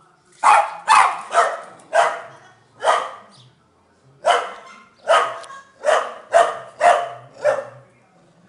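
Small terrier-type dog barking in short, sharp barks: five in quick succession, a pause of about a second, then six more.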